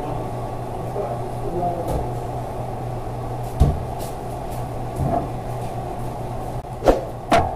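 A few separate knocks and bumps as marinated chicken pieces are pressed and stacked onto a vertical shawarma spit, the loudest two near the end, over a steady low hum.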